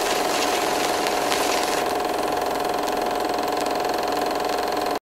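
Film projector sound effect: a steady mechanical rattle with a held whine, which cuts off abruptly near the end.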